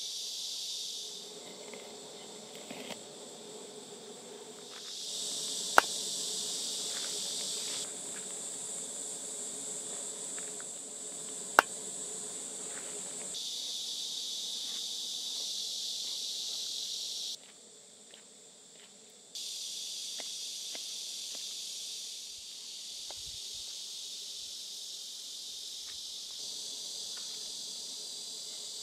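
A steady chorus of crickets and other insects chirping, which drops out and changes level abruptly several times. Two sharp clicks stand out above it, and a few fainter ticks come and go.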